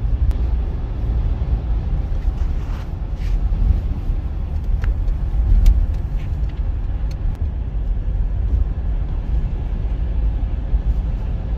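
Road noise inside a moving car's cabin: a steady low rumble of tyres and engine, with a few faint clicks.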